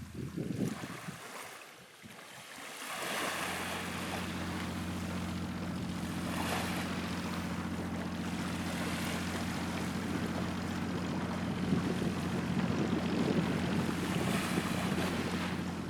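Boat engine running steadily, with wind and water noise over it.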